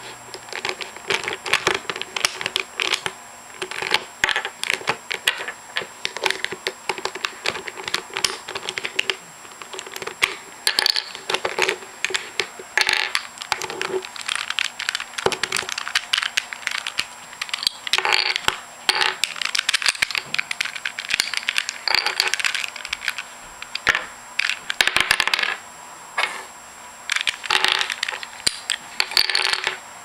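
Plastic Rubik's cube pieces clicking and clattering as the cube's layers are turned and pieces are popped out and set down on a hard tabletop. Irregular sharp clicks, with denser runs of clatter every few seconds.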